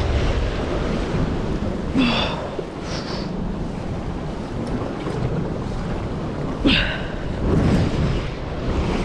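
Wind buffeting the microphone over surf washing against rocks, a steady low rumble, with a few brief higher-pitched sounds about two, three and seven seconds in.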